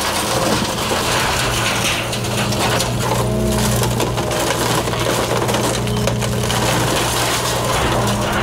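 A 40,000-pound excavator's diesel engine runs steadily under load while its bucket crushes into a wood-framed house. Timber framing and siding crack, splinter and crumple continually.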